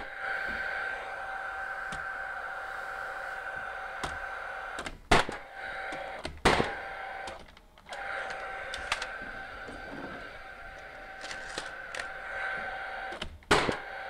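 Paslode cordless framing nailer driving nails into a wooden top plate: three sharp shots, two about a second and a half apart and a third near the end. A steady whirring hum runs between the shots, typical of the nailer's fan.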